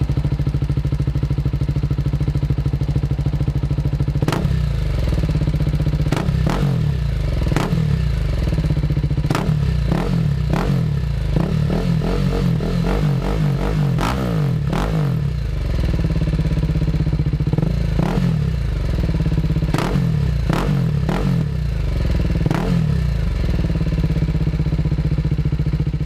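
BMW G310R's single-cylinder engine idling through an Akrapovic Racing Line carbon slip-on exhaust, with a run of short throttle blips that rise and drop back to idle.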